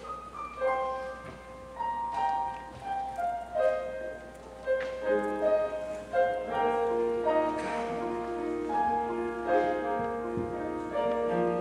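Piano playing the introduction to a choral song: a single-note melody at first, filled out with lower chords from about five seconds in.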